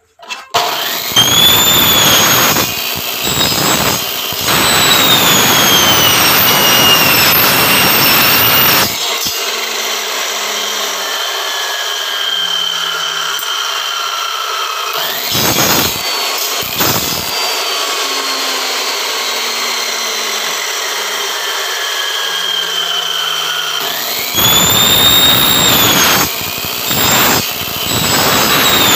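Electric miter saw cutting through a taped bundle of aluminum window-screen frame profiles at a 45-degree angle. There are two loud cuts, one over the first nine seconds and another near the end. Between them the saw's whine is quieter and slowly falls in pitch, with a couple of brief bursts.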